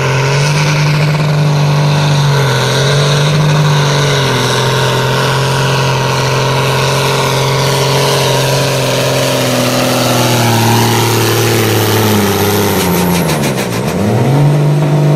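John Deere farm tractor's diesel engine running at full throttle under heavy load while pulling a weight-transfer sled. Its pitch sags slowly as the sled bears down, then drops sharply near the end and climbs again.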